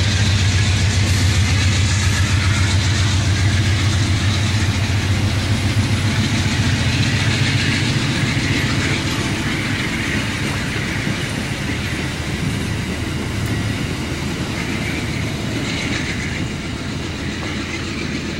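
Amtrak Amfleet passenger coaches of a moving train rolling past, their wheels running on the rails. The sound grows quieter from about halfway through as the last car passes and the train moves away.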